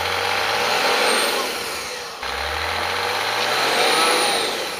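Toyota Land Cruiser 100 4x4 engine revving hard in two surges, with a dip about two seconds in, while its wheels spin for grip in deep snow on a climb.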